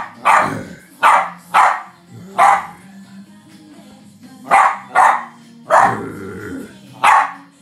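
West Highland White Terrier barking: about eight short, sharp single barks, spaced unevenly, with a gap of about two seconds near the middle.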